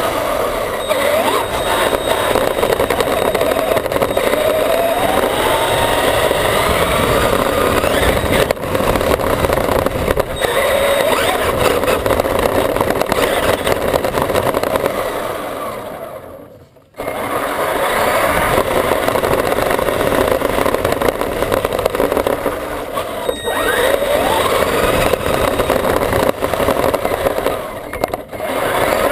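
Electric Traxxas E-Maxx RC monster truck heard from a camera mounted on it: the motors and drivetrain whine, rising and falling in pitch with the throttle, over a constant rattle from the chassis. About two thirds through it drops briefly almost to quiet, then cuts back in suddenly.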